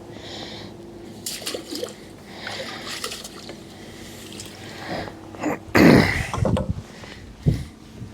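Water splashing and dripping around a freshly landed carp being handled in the landing net, with a louder splash about six seconds in.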